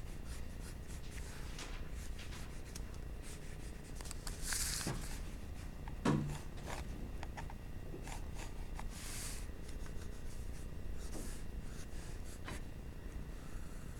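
Graphite pencil scratching on paper in short strokes, with a couple of longer, hissier strokes around the middle and a light knock about six seconds in.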